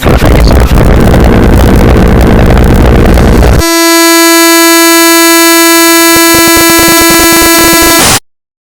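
A very loud, distorted, crackling noise for the first few seconds. Then a single steady horn-like blare is held for about four and a half seconds and cuts off suddenly.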